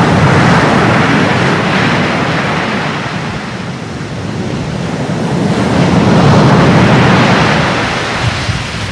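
Rushing sound of waves washing, loud and even, swelling, easing about four seconds in, then swelling again and fading near the end.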